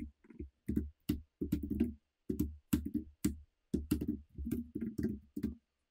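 Typing on a computer keyboard: irregular keystrokes, a few a second, with short pauses in between.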